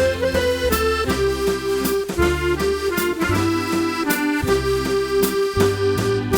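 Solo accordion playing a Scottish waltz tune: a held melody over a steady waltz accompaniment of bass notes and chords on the beat.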